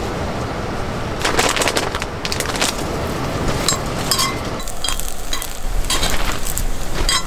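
Strips of butter-grilled squid sizzling in a small cast-iron skillet while a utensil stirs and turns them, clinking and scraping against the pan several times.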